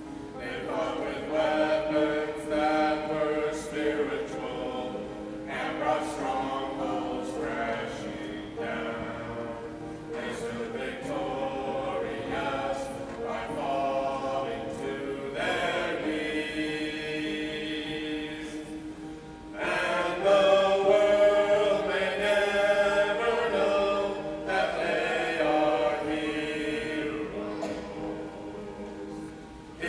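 Small mixed group of men's and women's voices singing a cappella in harmony, in phrases with long held chords; the singing gets louder about two-thirds of the way through.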